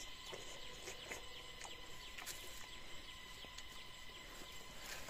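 Faint open-air ambience: a steady faint high hum of insects with bird calls and a few light clicks.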